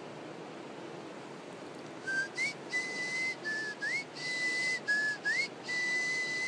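A person whistling a short tune: a low note, an upward slide and a longer held note, a phrase repeated three times, which breaks off abruptly.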